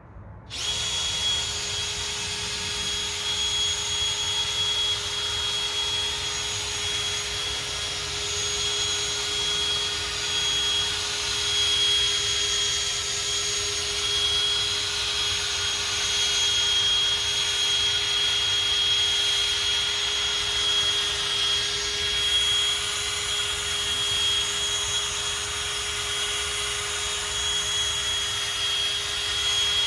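Power drill spinning a 3000-grit sanding pad against a plastic headlight lens: a steady motor whine with a sanding hiss, starting about half a second in and cutting off sharply at the end.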